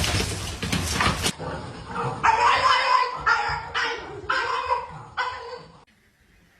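A dog barking, five or six barks in about three and a half seconds. They come after a stretch of noise that cuts off suddenly about a second in.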